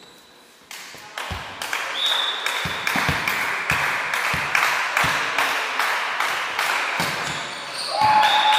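Spectators in a sports hall cheering and shouting over a steady beat of about three strokes a second that starts about a second in.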